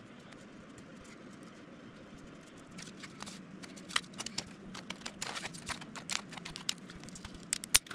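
Thin 20-thou aluminium sheet and a steel ruler handled on a workbench while the sheet is bent by hand over the ruler's edge: an irregular run of sharp clicks and taps starting about three seconds in, over a faint steady room hum.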